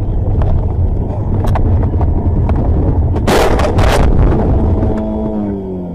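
Steady low road and wind rumble inside a moving car, recorded by a dashcam. About three seconds in comes a loud, noisy crash lasting under a second, a collision. Near the end a tone slides steadily down in pitch.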